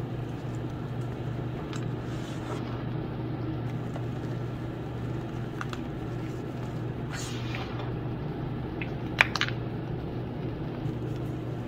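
Hands crushing and crumbling gym chalk chunks into powder, with soft scattered crunches and a few crisp cracks, the sharpest about nine seconds in. A steady low hum runs underneath.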